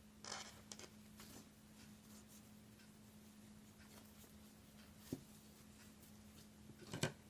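Faint rustling of a ribbon bow being fluffed out by hand: a few brief, scattered rustles, with a small click partway through.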